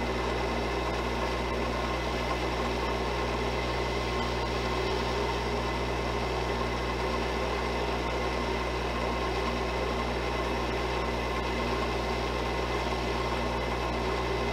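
Wood lathe running steadily at low speed: an even motor hum with a few constant tones.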